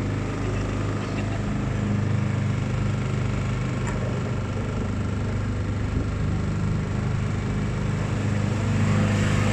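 Small hired motorboat's engine running steadily at low speed, an even hum.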